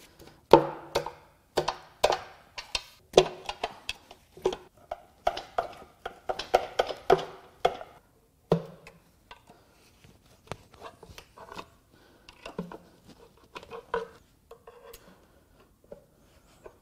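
Steel pry bar levering and knocking against the timing cover of a BMW B38 three-cylinder engine as it is worked loose from the block: a quick run of sharp metal clicks and knocks, some ringing briefly, for about eight seconds, then a few lighter taps.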